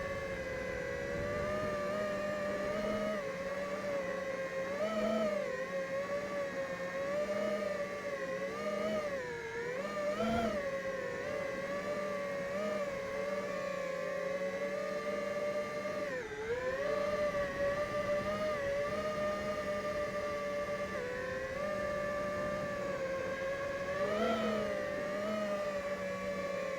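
FPV racing quadcopter's brushless motors and propellers whining steadily, the pitch rising and falling with throttle changes as the quad flies.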